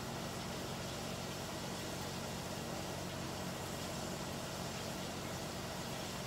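Steady low hum with a faint hiss, unchanging throughout: room background noise with no distinct event.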